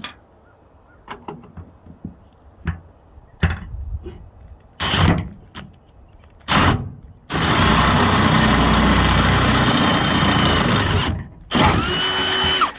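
Power drill with a 23/64-inch bit enlarging a pilot hole in the steel bed of a pickup truck for a rivet nut. A few knocks and short bursts come first, then about four seconds of steady drilling past the middle, a brief pause, and another second of drilling near the end.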